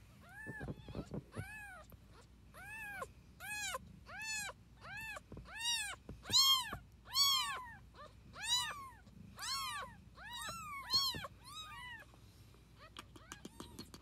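Newborn kittens mewing: a run of short, high cries, about two a second, each rising and falling in pitch, stopping about two seconds before the end.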